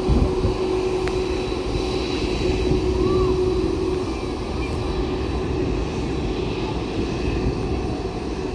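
Jet engines of a United Boeing 767 airliner running as it rolls along the runway before take-off: a steady rumble with a whining tone that fades about four seconds in.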